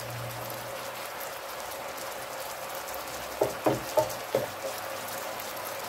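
Chicken in caramel sauce simmering and sizzling steadily in a frying pan, with a few short knocks of the stirring utensil against the pan between about three and a half and four and a half seconds in.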